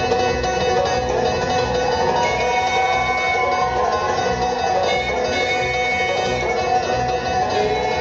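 Bluegrass band playing the opening bars of a tune: fiddle, banjo, mandolin and guitar together over a steady bass beat.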